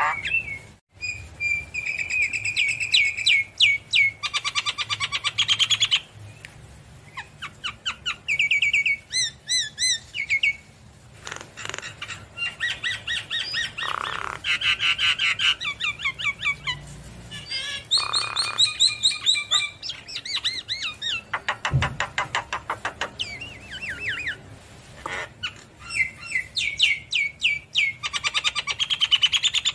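Javan myna singing in long bouts of rapid, repeated chattering notes, trills and whistles, with short pauses between phrases.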